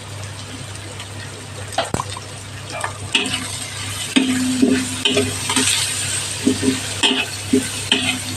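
Garlic, chilies, dried anchovies and spices frying in hot oil, sizzling, stirred in a pan with a utensil that scrapes against the pan in short repeated strokes from about three seconds in. A steady low hum sits underneath.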